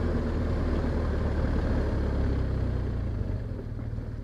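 Motorcycle engine running as the bike rides along, the engine sound easing off and getting quieter near the end as the rider slows.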